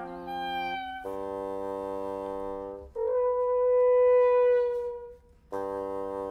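Woodwind quintet of flute, oboe, clarinet, horn and bassoon playing long sustained notes: a low held chord, then a single held note that swells and dies away into a short pause about five seconds in, after which a low chord starts again.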